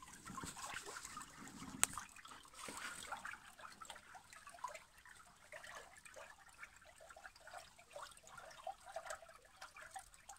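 Faint trickling and dripping of water in a narrow underground karez tunnel, with one sharp click about two seconds in.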